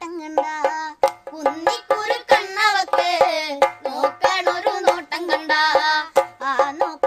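Background music: a fast, ornamented melody with short percussive strokes, no words.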